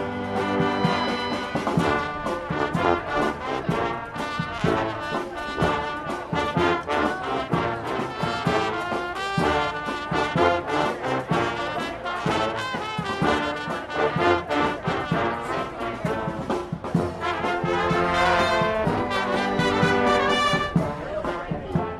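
Brass marching band playing live, trombones and trumpets carrying the tune over a steady beat.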